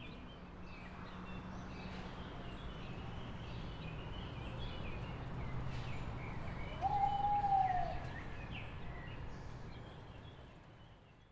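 Outdoor ambience of birds chirping over a steady low hum, with one longer, louder arched tone about seven seconds in; it all fades out near the end.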